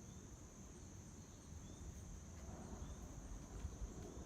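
Steady high-pitched chorus of crickets, with a few short bird chirps. Under it is a faint low rumble that grows slightly louder past the middle.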